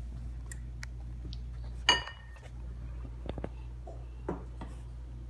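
Quiet room with a steady low hum, a few light clicks, and one sharp clink about two seconds in that rings briefly.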